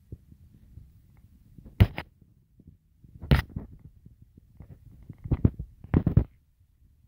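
Handling noise from a handheld phone being moved around close under a truck: low rumbling rubs with a few sharp scrapes and thumps, the loudest about two seconds in and again near the end.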